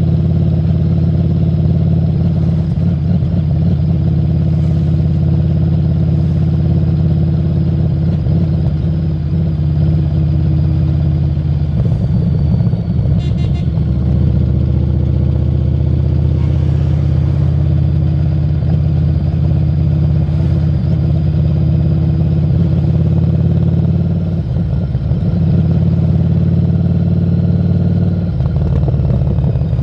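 Harley-Davidson Street 750's liquid-cooled V-twin running through a Screamin' Eagle aftermarket exhaust while the bike is ridden, holding a fairly steady pitch, with brief changes in engine note about twelve seconds in, around twenty-five seconds in and near the end.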